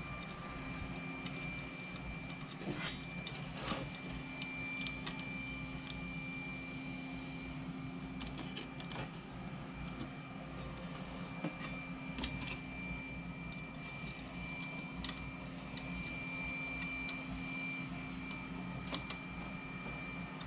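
Scattered light clicks and taps of small parts being handled during reassembly of a disc drive, over a steady background hum with a faint high whine.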